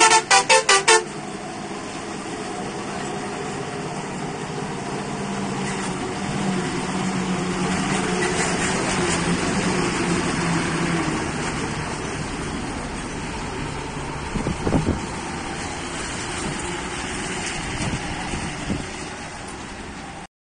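A loaded Indian goods truck's engine running under load as it climbs round a hairpin bend and passes close by, swelling to its loudest midway and then fading. The first second holds a rapid pulsing tone that cuts off abruptly, and a short cluster of sharp sounds comes a few seconds after the truck passes.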